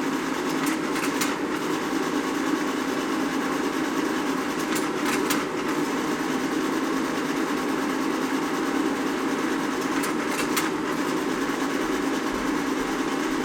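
Argus Electromatic 570 slide projector running: a steady hum of its motor and fan. Three times, about five seconds apart, a pair of sharp clicks about half a second apart cuts through the hum.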